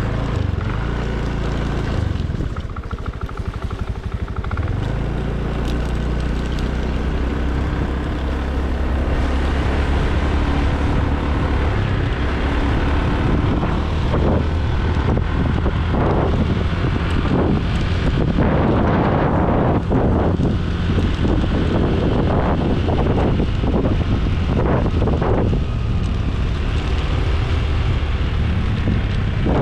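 Motor scooter's engine running as it is ridden along a road, with wind buffeting the microphone, the gusts heavier in the second half.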